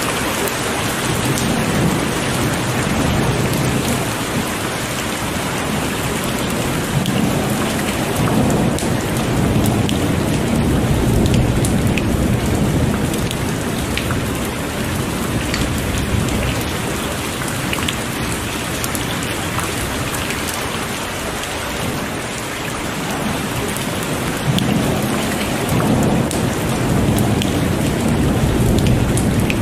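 Heavy rain pouring steadily, with low rolling thunder swelling up several times.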